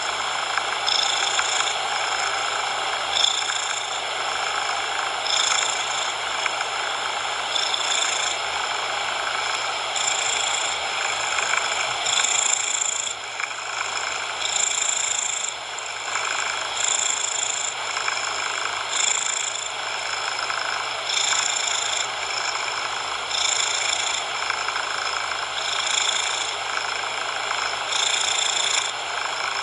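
A cat purring, mixed with a steady noise hiss. The purr swells about every two seconds, in time with the cat's breathing.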